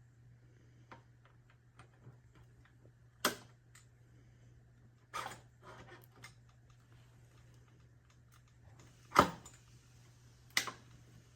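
Scattered light clicks and a few sharper knocks from metal bicycle parts being handled as a mountain bike fork and its headset bearing are fitted into the frame's head tube. The loudest knock comes a little past the middle.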